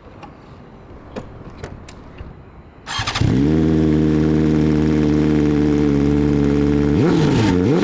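A few faint clicks, then about three seconds in a BMW S1000 RR's inline-four engine is started: the starter catches and the engine settles into a steady fast idle. Near the end the throttle is blipped, the pitch rising and falling in quick revs.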